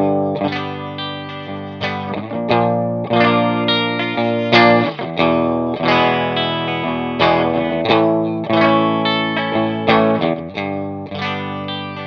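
Electric guitar strumming a chord riff through a Tech 21 Double Drive overdrive pedal, giving a crunchy, distorted tone modelled on a cranked Vox AC30 (EL84 Class A amp). The chords are struck about once or twice a second and left to ring.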